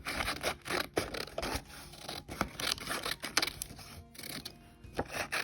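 Scissors cutting through paper in a run of short, irregular snips.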